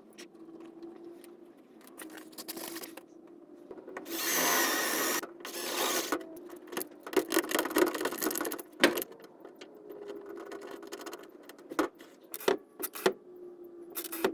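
Hand work with tools and small parts: a loud burst of scraping or rubbing about four seconds in, then a string of short clicks, knocks and taps.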